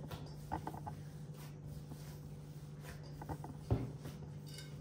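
Gloved hands kneading soft cookie dough in a glass bowl: faint rustling and squishing with a few light knocks, the loudest near the end. A low steady hum runs underneath.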